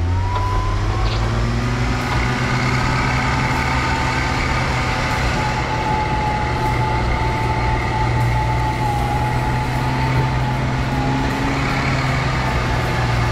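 Warn Zeon 12 electric winch on a Jeep pulling a stuck dump truck loaded with rocks: a steady whine from the winch motor and gears under load, over a continuous low engine drone.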